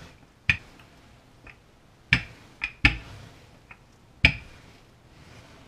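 Wooden rolling pin rolling out puff pastry on a countertop, giving several sharp knocks as it is worked back and forth.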